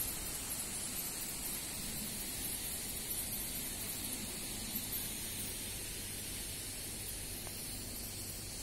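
Steady hiss of outdoor background noise with a faint low rumble underneath; no distinct event stands out.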